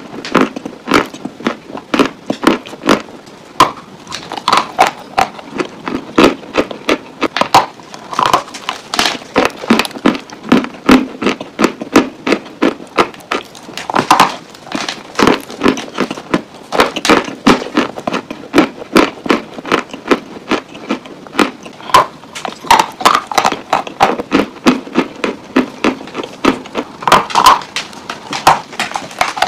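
Dry Turkestan white clay crunching as it is bitten off a lump and chewed: a continuous run of sharp crunches, two or three a second.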